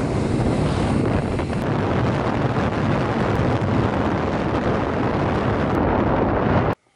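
Steady loud wind rush buffeting the microphone of a camera on a moving motorcycle, with the ride's road noise underneath; it cuts off abruptly near the end.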